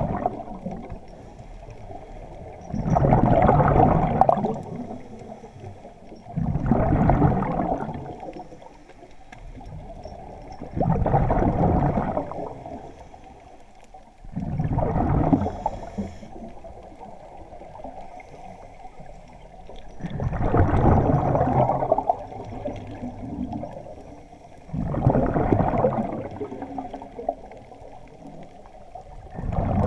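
Scuba diver's exhaled air bubbling out of the regulator underwater, a gush of bubbling every four to five seconds with quieter breathing between.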